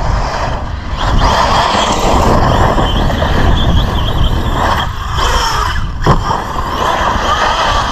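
Arrma Big Rock 6S RC truck driven hard over a dirt track: its brushless motor whines up and down under throttle and its tyres churn the loose dirt, with a low rumble of wind on the microphone. A sharp knock comes about six seconds in.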